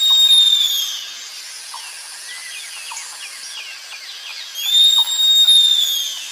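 Sloth's high-pitched whistling call: a long, steady squeal given twice, about five seconds apart. Many small chirps and ticks run in the background.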